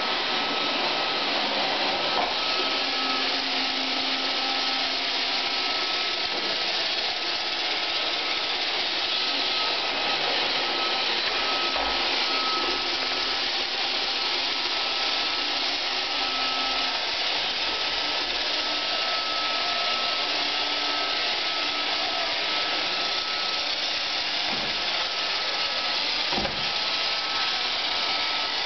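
iRobot Roomba 520 robot vacuum cleaner running as it drives across the floor: a steady whirr of its motors and brushes with a high, even whine through it, and a few light knocks.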